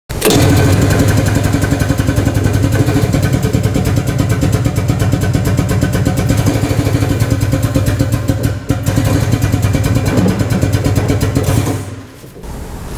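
A combustion engine running steadily with a rapid, even pulse, cutting out about twelve seconds in.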